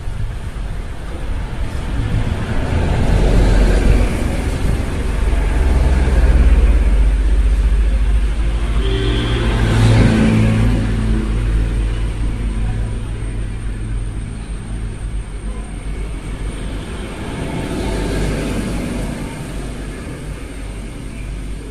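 Motor vehicles passing on a nearby road: a low engine rumble that builds, is loudest about ten seconds in, and fades, with a smaller swell near the end.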